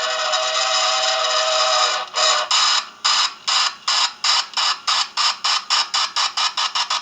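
Toy train station's electronic steam-locomotive sound effect: a steady hiss with a held tone, then about two seconds in a chuffing that starts slowly and speeds up.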